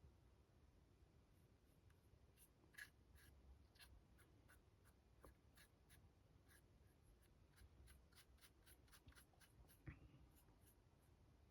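Faint, quick scratching of a paintbrush stroked across the raised details of a 3D-printed figure, with a soft knock near the end.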